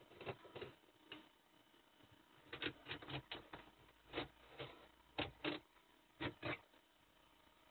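Utility knife blade cutting through padded upholstery fabric: about fifteen short, faint cutting strokes in irregular clusters, with pauses between.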